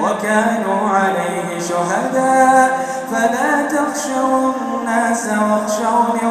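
A solo man chanting Quranic recitation in melodic tajweed style. Long drawn-out notes slide between pitches, with short pauses for breath.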